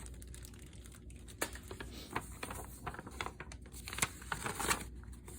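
Light crinkling and rustling of paper being handled, with scattered small clicks, as the instruction sheets are picked up.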